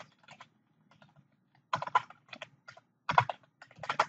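Computer keyboard typing: a few keystrokes, a short pause, then two quick runs of key clicks as a terminal command is typed and entered.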